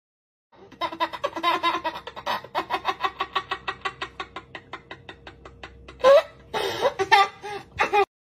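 Toddler's belly laugh: a long run of rhythmic ha-ha pulses, about five a second, fading over several seconds, then a few louder squealing bursts near the end.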